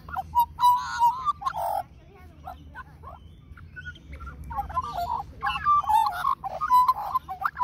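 Australian magpie singing close by: a warbling, fluting song that goes quieter for a couple of seconds about two seconds in, then comes back louder.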